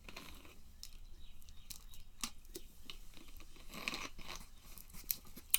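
Faint scattered clicks and crinkles of a plastic drink bottle being handled, its screw cap twisted.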